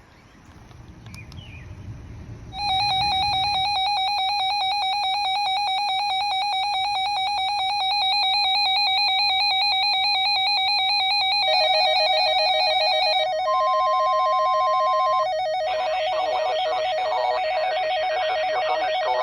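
Emergency alert attention tone for a severe thunderstorm warning, played over weather radio: a loud, steady electronic tone with a fast pulsing buzz starts about two and a half seconds in. It drops lower in pitch partway through, with a short higher tone laid over it. Near the end a broadcast voice begins reading the warning while the tone continues.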